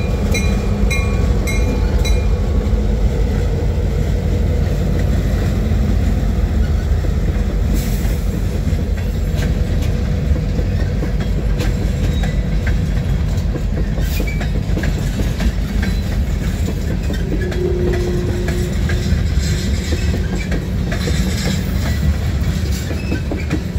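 Railroad cars rolling past close by: a steady, heavy rumble of wheels on rail with faint ticking clatter, and a brief pitched note about three-quarters of the way through.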